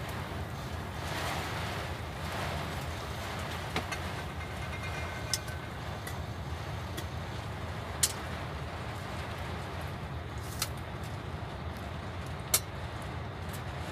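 Heavy rain and wind heard from inside a vehicle cab: a steady rushing over a low rumble, swelling briefly in the first few seconds, with a few sharp taps of drops striking the windscreen, the loudest near the end.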